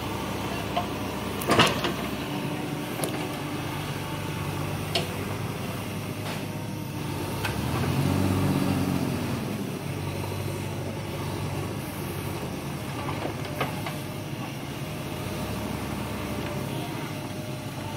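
JCB 3DX Xtra backhoe loader's diesel engine running steadily under load while the backhoe digs, revving up and back down once about halfway through. A few sharp knocks stand out, the loudest about a second and a half in.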